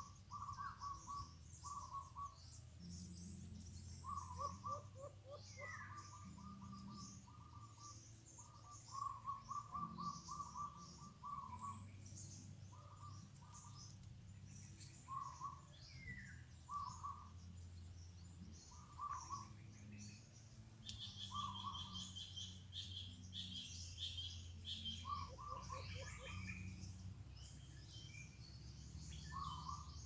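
White-eared brown doves calling: repeated short runs of rapid low notes every second or two. Other small birds chirp high and thin over them.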